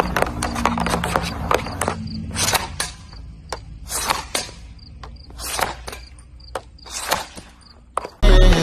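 Hockey stick blade and pucks clacking on a plastic dryland training tile during stickhandling: irregular sharp clicks, a few per second.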